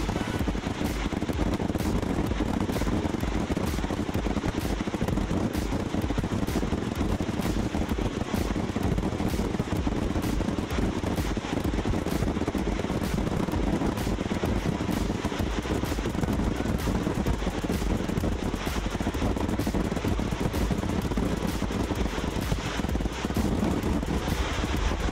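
Fireworks display going off: a dense, unbroken crackle of many rapid small reports, like a fusillade.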